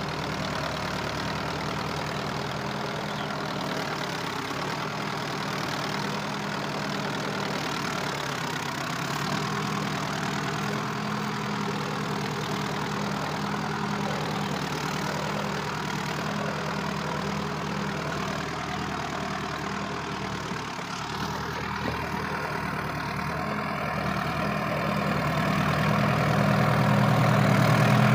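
Solis 4WD tractor's diesel engine running steadily under load as it pulls a mouldboard plough through the soil, growing louder over the last few seconds.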